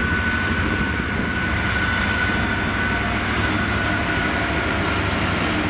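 GBRf Class 66 diesel-electric locomotive, a two-stroke V12, running as it approaches at the head of a freight train, a steady low rumble with a thin high whine that holds throughout.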